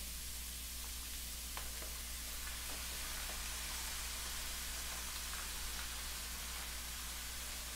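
Ground pork and diced vegetables sizzling faintly in a wok: a steady, even hiss with a few faint ticks early on as the spaghetti sauce is squeezed in.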